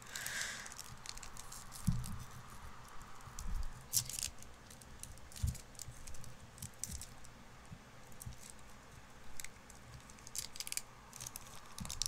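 Foil Pokémon card booster pack crinkling and crackling in the fingers as its crimped top seam is picked and peeled open, in small scattered clicks that grow busier near the end.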